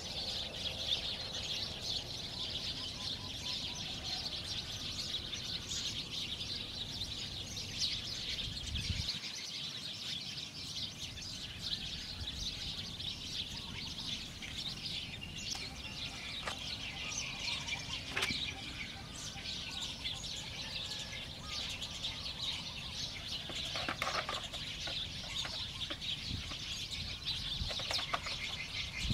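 Many small birds chirping busily and without pause, with a few short knocks here and there.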